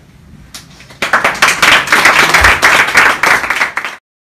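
Audience applauding, a dense patter of many hands clapping. It starts suddenly about a second in and cuts off abruptly near the end.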